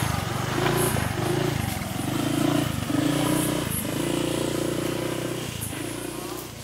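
Motor scooter engine running and revving up and down as it pulls away, growing fainter near the end.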